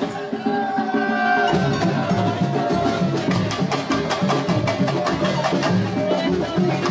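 Samba percussion music: deep drums keep a steady beat under fast, sharp strikes and shaker strokes.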